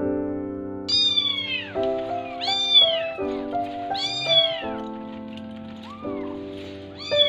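Kittens meowing: a series of loud, high-pitched cries that rise and fall, about one every one and a half seconds, over soft piano music.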